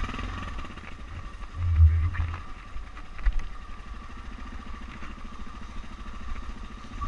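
Off-road motorcycle engine running steadily at low speed, with a heavy low thump about two seconds in and a short knock a second later.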